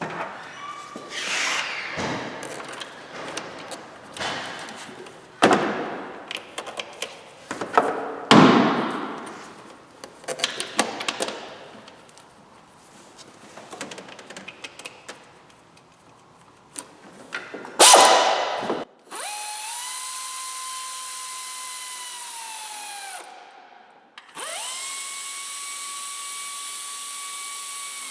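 Clatter and knocks of plastic air intake duct and air filter housing parts being handled and fitted, then a power driver run twice for about four seconds each: a steady whine that rises as it starts and winds down as it stops.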